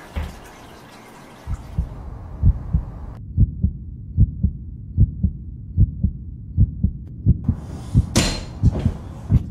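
Heartbeat sound effect: low double thumps repeating about every 0.8 seconds. About three seconds in the rest of the sound drops away to muffled, and a short burst of hiss comes near the end.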